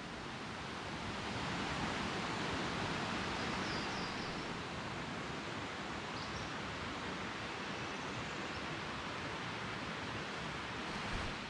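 Steady rush of a mountain creek's flowing water, an even hiss with no pauses.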